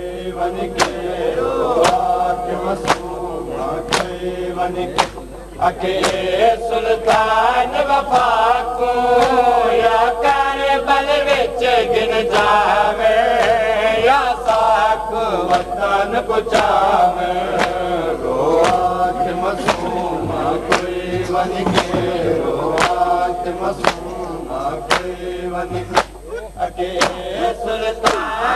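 Male voice chanting a noha, a Shia mourning lament, in long melodic lines, over a steady beat of sharp slaps from hands striking chests (matam).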